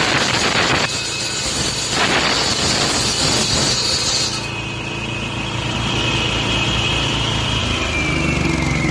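Concrete cutter saw cutting a joint into a floor slab, its blade grinding through the concrete in loud surges. About halfway the cutting noise stops and the saw's engine runs on with a whine that falls slowly in pitch.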